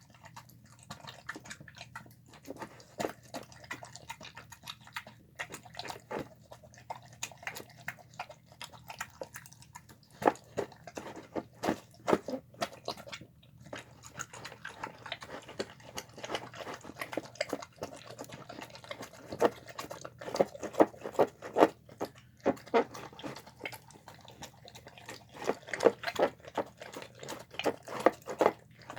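Dog eating wet slop of chicken, rice and beans: irregular wet chewing and smacking. It grows louder from about ten seconds in and again near the end.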